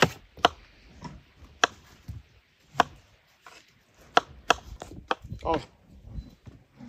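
Knife chopping food on a cutting board in irregular strokes, about eight sharp knocks.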